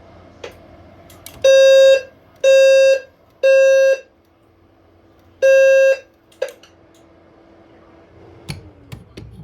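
EST Genesis low-frequency sounder sounding a low, buzzy 520 Hz tone in the temporal-3 evacuation pattern, activated in a fire alarm walk test: three half-second blasts, a pause, then one more blast before it stops. A few sharp clicks come before and after.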